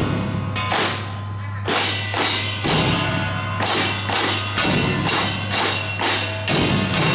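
Festival drum troupe playing: sharp, evenly spaced strikes about twice a second, each with a ringing tail, with a brief lull about a second in.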